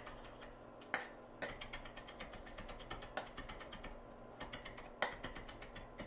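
Chef's knife chopping fresh cilantro on a wooden cutting board: a quick, steady run of knife taps on the board, with a few louder strikes.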